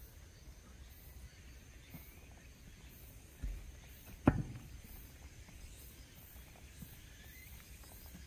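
Footsteps of someone walking on a stone-paved path, soft and steady, with a dull thump about three and a half seconds in and a sharp knock just after four seconds.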